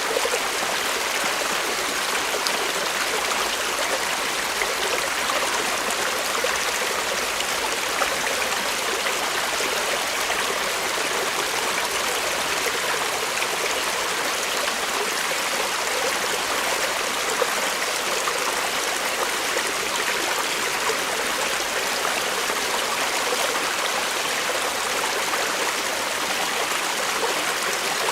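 Small forest creek flowing steadily over stones, a constant babbling and trickling rush of water with tiny splashes.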